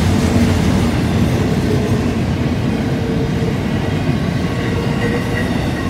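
Double-stack intermodal freight cars rolling past on a curve: a steady, loud rumble of steel wheels on rail, with a faint steady squeal riding over it.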